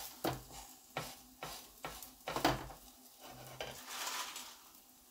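A hand patting and pressing msemen dough flat in a hot frying pan, a run of soft taps about twice a second, then a faint sizzle of the flatbread frying.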